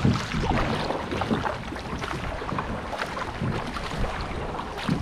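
A kayak running down a river: rushing, splashing water around the hull and paddle, with irregular surges from the strokes and some wind on the microphone.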